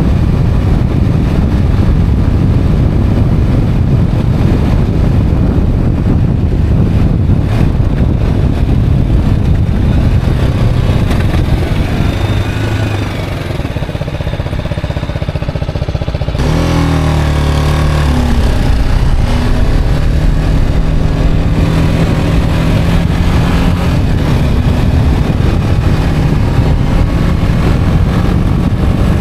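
Motorcycle under way: steady wind rush on the microphone over the engine, dropping a little around the middle, then the engine note comes through clearly and rises in pitch as the bike accelerates, before the wind noise covers it again.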